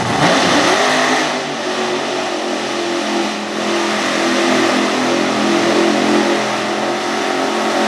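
A 1600-horsepower mega truck's engine revs up sharply at the start and is then held at high revs, wide open, as the truck ploughs through deep mud.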